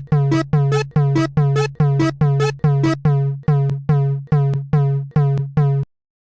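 Electronic railroad crossing warning bell ringing in a steady repeated 'kan-kan' about three strokes a second, over a steady low drone. It stops suddenly near the end.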